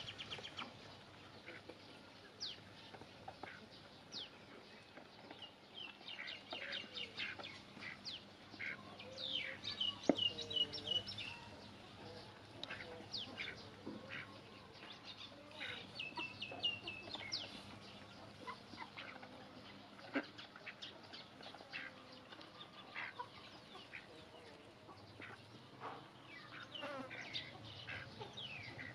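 Farmyard fowl: chickens clucking among many short, high chirps in quick runs, loudest about ten seconds in.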